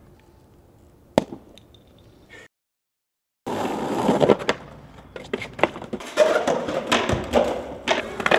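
A single sharp click, a second of dead silence, then skateboard wheels rolling loudly on hard ground with a run of sharp clacks and slaps from the board.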